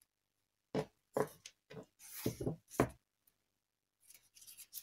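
Handling noise from green floral tape and wired stems being worked by hand: a cluster of short rustles and knocks in the first three seconds, the longest rustle about two seconds in, then a few faint clicks near the end.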